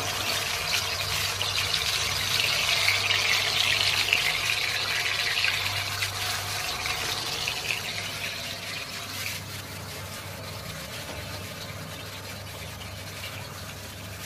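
Curd-marinated fish pieces sizzling as they fry in hot mustard oil in an aluminium kadai. The sizzle is loudest a few seconds in, then settles to a quieter hiss.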